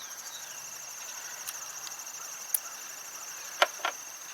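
Crickets trilling steadily, with a few small sharp clicks of metal hardware being handled at the motorcycle battery terminal; the loudest two clicks come close together near the end.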